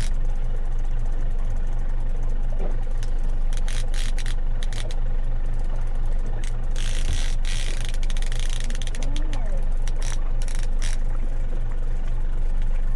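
Boat motor running at trolling speed with a steady low drone, with scattered clicks and knocks from handling gear on board.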